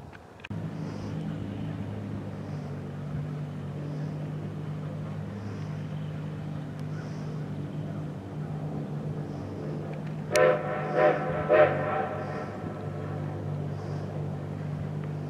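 Steam locomotive whistle sounding three short blasts about ten seconds in, over a steady low drone.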